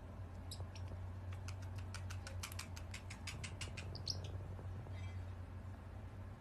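A quick run of light, sharp clicks, about seven a second for roughly two and a half seconds, with a brief high chirp just before and just after, over a low steady hum.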